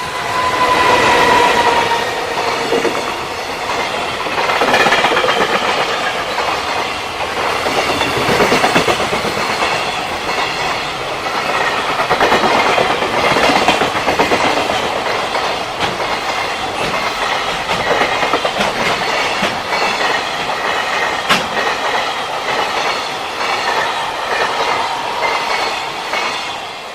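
A JR Freight train passing close by on the Tōkaidō Main Line, its wagon wheels clattering over the rail joints in a steady clickety-clack. A tone drops slightly in pitch in the first two seconds, and the noise fades near the end as the train goes by.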